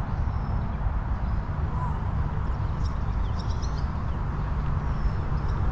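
Outdoor ambience: a steady low rumble, with a few faint, short bird chirps about three seconds in.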